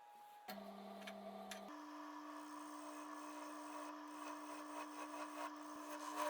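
Wood lathe starting up, its steady hum stepping up in pitch about a second later and then holding, with a turning tool scraping against the spinning Corian bowl base.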